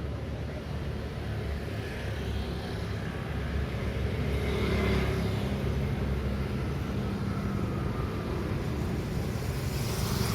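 Road traffic at a city intersection: a steady low rumble of engines, with one vehicle passing loudest about five seconds in and another approaching near the end.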